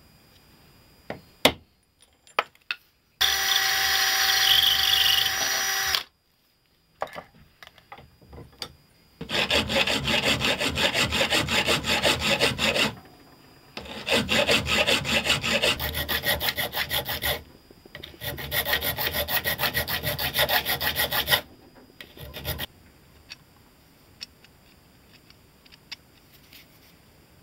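Hand file rasping across a small metal part clamped in a bench vise, in quick back-and-forth strokes, in three bouts of a few seconds each. Before that come a few sharp taps of a hammer on a pin punch and a steady scraping noise lasting about three seconds.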